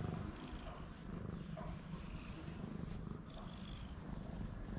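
A cat purring steadily while being stroked.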